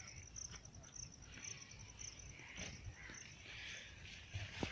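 Quiet outdoor background: a faint insect chirp pulsing evenly at a high pitch, with faint distant bird calls.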